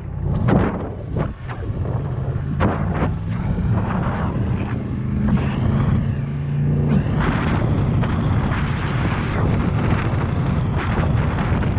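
Motorcycle riding along a road: engine hum under heavy wind buffeting on the microphone. The steady engine note gives way to wind noise about seven seconds in.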